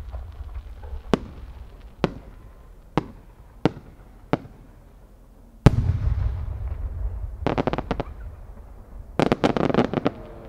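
8-gou (about 24 cm) senrin firework shell. A few sharp single cracks come first. About five and a half seconds in, the shell breaks with a heavy boom and a long rumble. Two quick rattling clusters of pops follow as its many small sub-shells burst.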